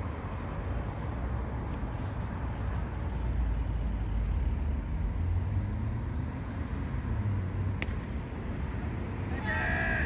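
Road traffic, a steady low rumble of passing vehicles that swells in the middle. A single sharp knock comes about eight seconds in, and a voice shouts out near the end.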